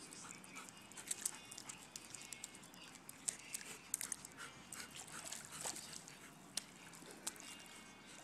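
A dog making faint whining sounds, with scattered sharp clicks throughout.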